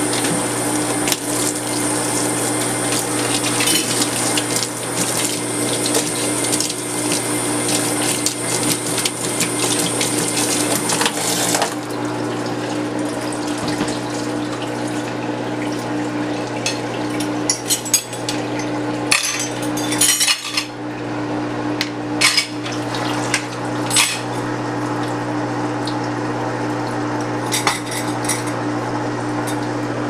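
Water from a hose spraying and splashing into the empty plastic wash tub of a twin-tub portable washer, rinsing out dirt, and cutting off suddenly about twelve seconds in. A steady low hum from the washer runs underneath, and a few short knocks and clatters come in the later part.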